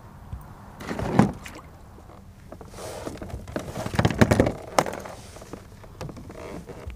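Knocks and thumps of gear handled against a Hobie Pro Angler 14 fishing kayak as the angler shifts about in it, with one thump about a second in and a run of louder knocks and clicks between about three and five seconds in.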